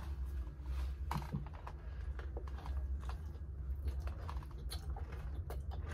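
Someone eating a takeaway meal: scattered small clicks and crunches of food and packaging, over a steady low room hum.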